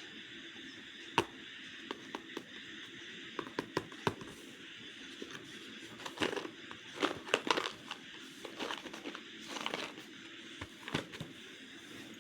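A slate pencil packet being handled and opened: a plastic wrapper crinkling in short bursts, with scattered sharp clicks, busiest in the middle, over a steady faint hiss.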